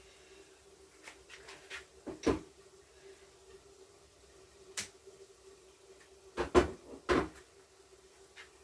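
Kitchen handling noises: several separate knocks and clunks, as of containers, utensils or a cupboard, with the loudest about six and a half seconds in. A faint steady hum runs underneath.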